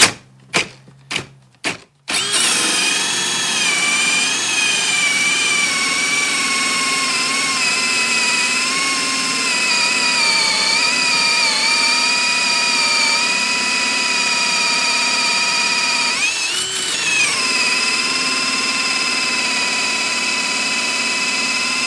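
Ryobi One+ 18V brushless hammer drill running a hole saw into a wooden block on a 3Ah HP battery. A few short knocks come in the first two seconds, then the drill runs under steady cutting load with a constant whine, its pitch briefly rising and falling about two-thirds of the way in.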